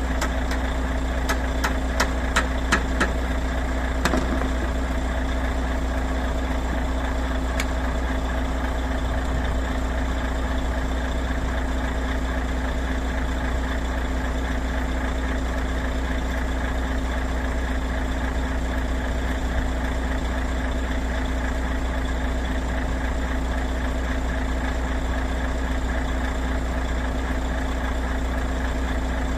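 Volvo truck's diesel engine idling steadily. A quick series of sharp hammer taps comes in the first few seconds, with one more about four seconds in.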